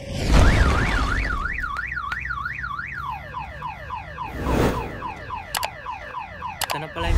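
A heavy thud, then a car alarm sounding: first a fast up-and-down warble about three times a second, then about a second and a half later a string of repeated falling sweeps.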